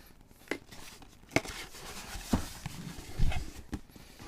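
A sealed cardboard headphone box being opened by hand: scattered clicks and knocks with light rustling, the loudest knock about three seconds in.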